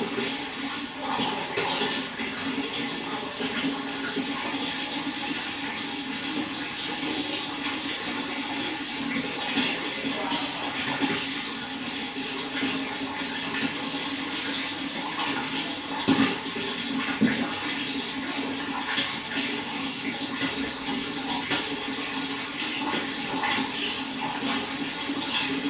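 Running water, splashing and gurgling steadily, with a couple of louder splashes a little past the middle.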